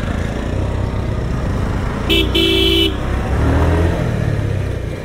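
Single-cylinder Bajaj Pulsar motorcycle engine running as it carries two riders up a rough hill track, with one short horn beep, under a second long, about two seconds in.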